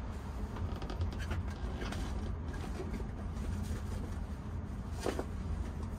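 Steady low background rumble with faint scattered clicks and handling noises from small parts being moved about, and one short louder knock about five seconds in.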